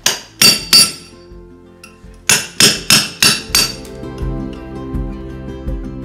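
Hammer blows in kitchen demolition, each sharp strike with a metallic ring: three quick blows, then five more about two seconds in. Soft background music fades in after the last blow.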